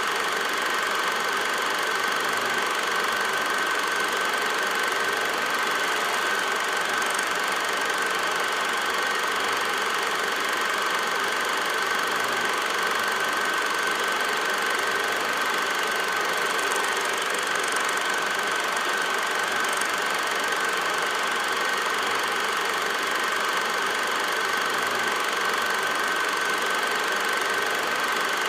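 Steady mechanical running noise, even in level, with a constant high-pitched whine.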